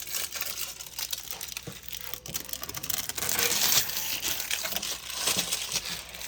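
Protective plastic film being peeled off new refrigerator parts and crumpled, a dense crackling and crinkling that grows loudest about three seconds in.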